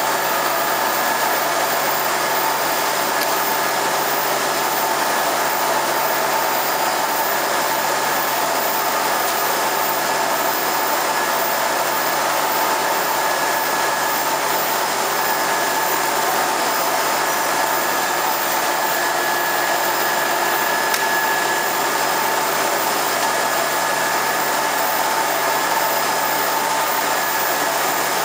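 Vial washing and drying machine running: a steady whir of blowers and motors, with a few faint constant tones over the rushing air.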